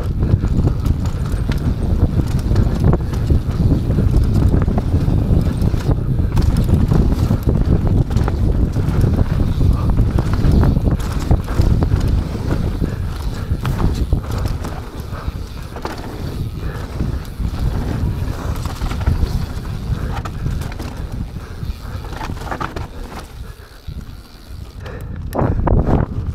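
Mountain bike rolling down a dirt trail: wind rushing over the camera microphone, tyres rolling and the bike rattling and knocking over bumps. It eases briefly near the end, then gets loud again.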